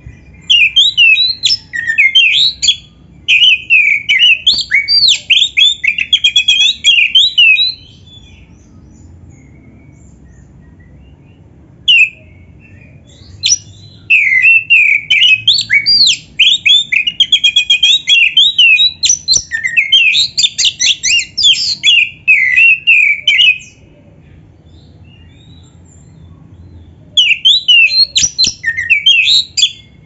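Black-breasted Oriental magpie-robin (kacer) singing loud, quick runs of varied high whistled notes and trills in three bouts: about seven seconds from the start, about ten seconds from the middle, and a short burst near the end, with a couple of single notes before the middle bout.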